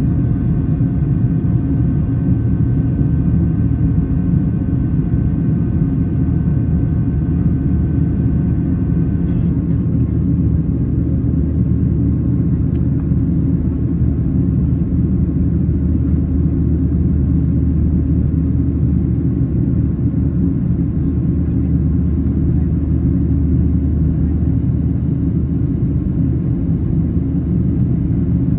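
Cabin noise inside a Boeing 737-800 climbing after takeoff: a loud, steady rumble of its CFM56-7B engines and the airflow. A set of thin, steady high tones runs over the rumble and cuts off about nine seconds in.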